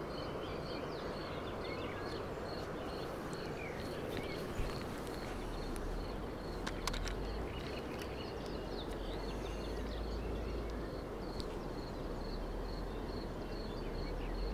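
Riverbank ambience: small birds chirping over an even hiss, with a faint high chirp repeating about three times a second. A few light clicks as the rod is set on its rest.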